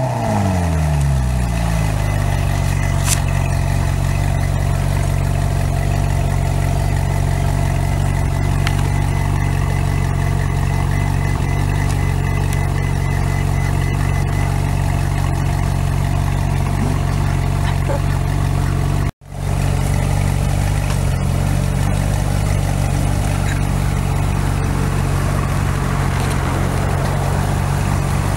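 Ferrari 458 Spider's V8 idling at the exhaust just after start-up: its revs fall from the start-up flare over the first couple of seconds, then settle into a steady idle.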